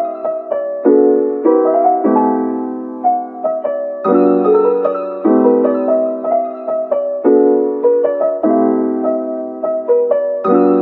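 Background piano music: soft chords and notes struck one after another, each dying away.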